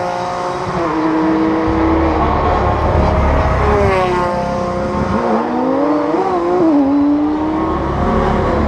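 Touring race car engines passing at speed, each engine note dropping in pitch as a car goes by. In the middle, another engine's pitch wavers and climbs before settling.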